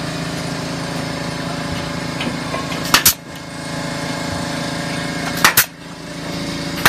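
A small engine drones steadily under building work. Three sharp double cracks ring out about two and a half seconds apart, each pair a fraction of a second long, the last near the end.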